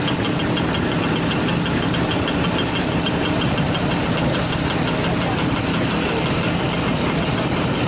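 Motorcycle engine running steadily under way, with a constant rush of wind and road noise. A fast, light ticking rides on top, fading out about halfway through and coming back near the end.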